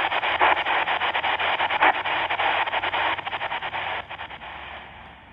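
XHDATA D-220 pocket radio on medium wave, playing loud hiss and irregular crackling static through its own speaker with no clear station audio. The static drops in level about four seconds in and again near the end.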